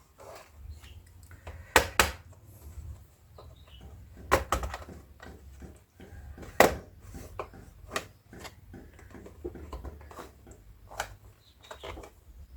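Plastic snap clips of a laptop's bottom cover clicking and snapping as the cover is pried off by hand, with a low handling rumble underneath. The loudest snaps come about two, four and a half and six and a half seconds in.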